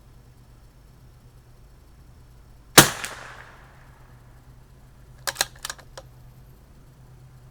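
A single shot from a CZ 457 .22 LR bolt-action rifle, sharp and loud with a short fading tail. About two and a half seconds later comes a quick run of four or five metallic clicks, the bolt being worked to eject the case and chamber the next round.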